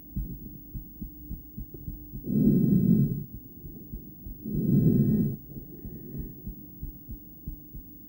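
A human heartbeat heard through a stethoscope on the chest: a train of soft, dull thuds. About two seconds in and again about two seconds later it is drowned by a loud breath rushing past the stethoscope, which sits in a poor spot for the heart.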